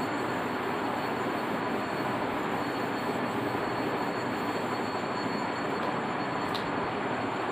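Steady background noise: a constant even rushing hiss with a thin high whine running through it, and one short click near the end.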